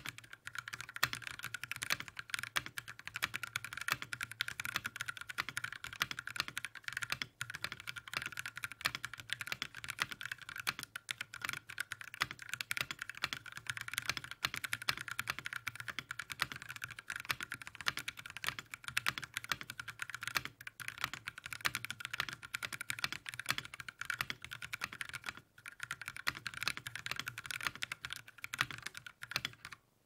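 Fast, continuous typing on a 60% mechanical keyboard with Kailh Box Speed Ultimate linear switches in an aluminium case on an aluminium plate. It makes a dense run of clacky keystrokes with a higher-than-normal pitch on the upstroke, and it sounds fairly standard despite the switches' noise-reduction springs. The run breaks only for two brief gaps, about 7 and 25 seconds in.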